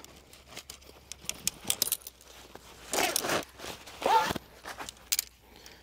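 Folded metal frame of a collapsible camping table being slid out of its fabric carry case: scattered light clicks and rattles of the legs, with a short rustle of the case about three seconds in.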